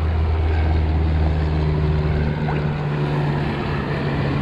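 A steady low engine drone that steps up to a higher pitch about two seconds in, over a steady hiss of background noise.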